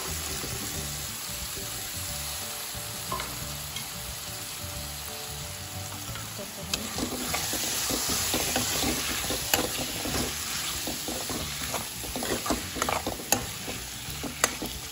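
Diced raw potatoes sizzling as they drop into hot oil and spiced onion masala in a steel kadai. From about halfway through they are stirred with a wooden spoon, which scrapes and knocks against the pan, the knocks coming more often near the end.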